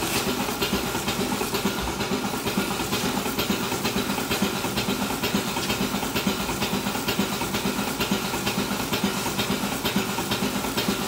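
Goat milking machines running: a steady vacuum hiss and hum, with the regular pulsing clicks of the pulsators.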